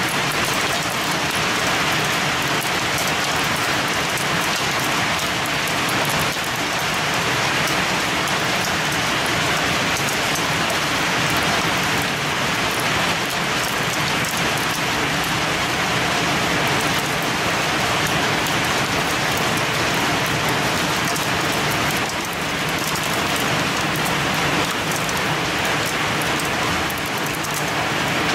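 Heavy rain mixed with hail beating steadily on a window and its concrete sill: a dense, unbroken downpour with many small hits.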